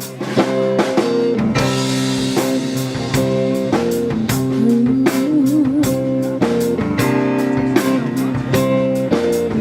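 Live rock band playing an instrumental passage: guitar over a drum kit keeping a steady beat, with a guitar note that bends and wavers about halfway through.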